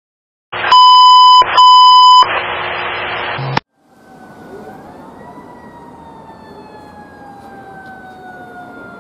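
Fire engine sounding two loud, steady electronic siren horn blasts, then a noisy air-horn blast that cuts off suddenly. After a short gap, a siren wail rises briefly and then falls slowly in pitch.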